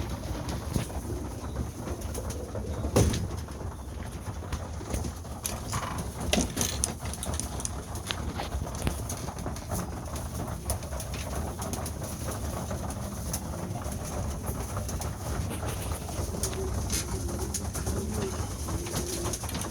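Domestic pigeons cooing in a loft, with a few sharp knocks, the loudest about three and six seconds in.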